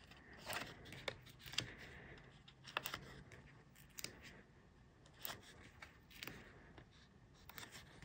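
A scatter of faint clicks and scrapes as foam adhesive dimensionals are peeled one by one from their backing sheet and pressed onto a cardstock panel.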